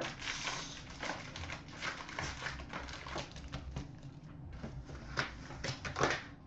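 Crinkling and tearing of a hockey card box's packaging and foil packs as it is opened, a busy run of short crackles and rips.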